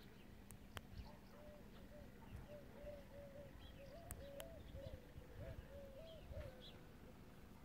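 Faint birdsong: a run of short, low notes rising and falling, mixed with a few higher chirps. A few sharp clicks sound near the start and about four seconds in.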